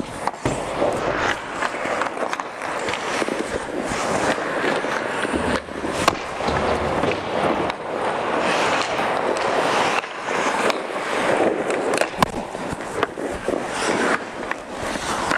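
Ice hockey skates scraping and carving on the ice close to the net, with sharp clacks of sticks, puck and pads as shots come in; the loudest cracks come about six seconds in and about twelve seconds in.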